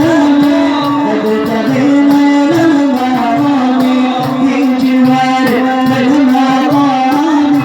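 Sufi devotional inshad music: a long, wavering melodic line held and ornamented over a steady, even percussion beat.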